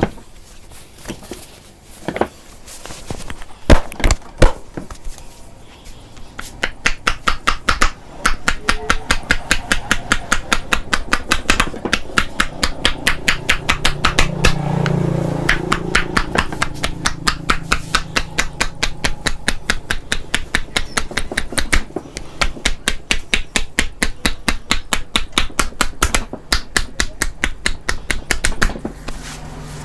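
Massage percussion strokes, the barber's hands striking the body in a fast, even rhythm of about four strokes a second. It starts about a fifth of the way in and stops shortly before the end, after a few separate sharp slaps.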